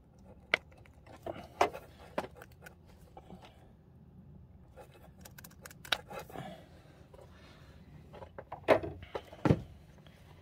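Scattered sharp clicks and light rattling of hand work on small wiring: crimp connectors and a hand tool being handled, and connectors pushed onto the terminals of a winch contactor. Two louder clicks come close together near the end.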